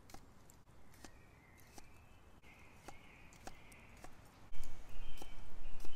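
A knife chopping new potatoes on a wooden tree stump: a series of sharp knocks, about one to two a second, as the blade cuts through and strikes the wood. Birds chirp in the background, and a loud low rumble comes in about three-quarters of the way through.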